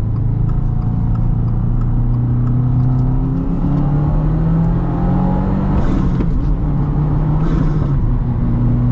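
Subaru WRX's turbocharged 2.4-litre flat-four accelerating hard, heard from inside the cabin: the engine note climbs, then drops twice in the second half as the six-speed manual is shifted up, with a short hiss at each shift.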